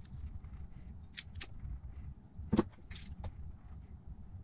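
A few short, sharp clicks and snips from scissors trimming thin wires and from handling the wire ends, the loudest a little past halfway, over a low steady hum.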